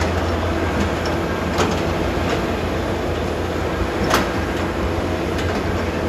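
Crawler bulldozer's diesel engine running steadily under load as it cuts and pushes soil, with two sharp knocks about a second and a half in and again about four seconds in.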